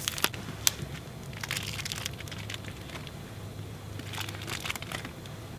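Plastic wrapper of a hot dog package crinkling and crackling as it is torn open and handled, with a couple of sharp clicks in the first second.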